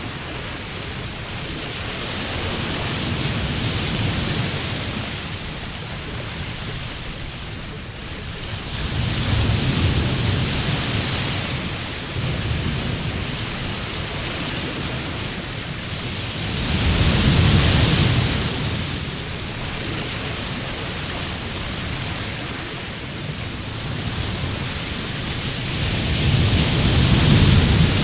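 Sea surf washing onto a beach: the noise of the waves swells and falls back in slow surges, the loudest break coming a little past halfway.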